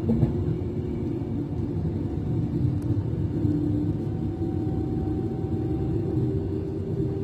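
Class 390 Pendolino electric train running, heard from inside the passenger coach: a steady rumble of wheels on the track with a low motor hum that drifts slightly in pitch, and a light knock right at the start.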